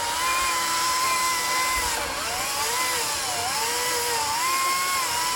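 Chainsaw running at high revs, its pitch dipping and recovering several times as the chain bites into the wood.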